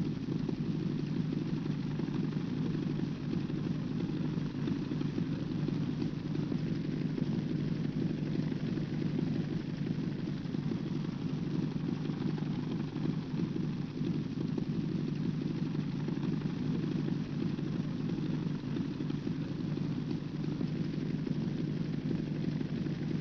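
The Spirit of St. Louis's single radial aircraft engine running steadily on the ground with a continuous low rumble, warming up before takeoff.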